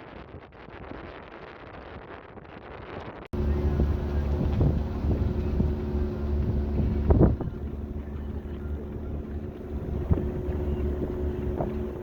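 Wind noise on the microphone, then, from about three seconds in, a motor vehicle's engine running steadily with a low hum and a few light knocks.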